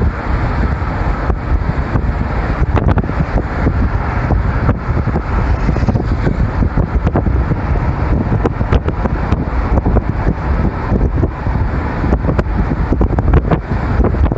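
Car driving at speed: a steady rush of road and wind noise with a heavy, fluttering low rumble.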